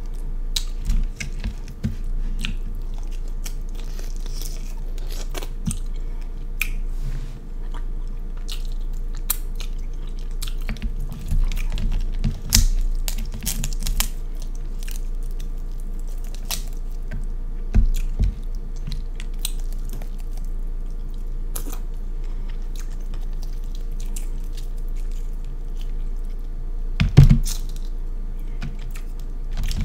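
Close-miked chewing and lip smacking while eating king crab leg meat, with scattered small clicks and crunches. A single louder thump comes near the end.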